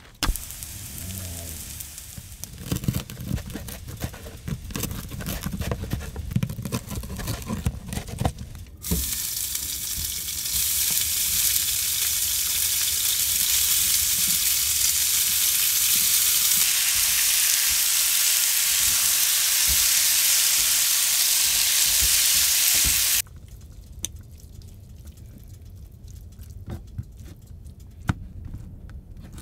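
Leftover noodles sizzling in a hot frying pan on a gas burner: a loud, even hiss that starts suddenly about a third of the way in and cuts off sharply about two thirds through. Before it there are handling knocks and rustles, and after it a few light clicks.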